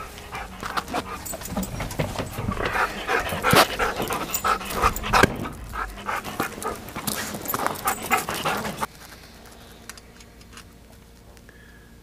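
A dog panting close to the microphone, mixed with rustling and scuffing on gravel. About nine seconds in, it cuts abruptly to a quiet room with only a few faint ticks.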